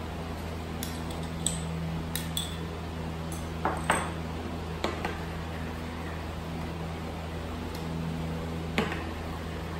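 Metal spoon clinking and tapping against a small cup and a ceramic bowl while a yogurt sauce is made: a scattered handful of light clinks, the loudest about four seconds in, over a steady low hum.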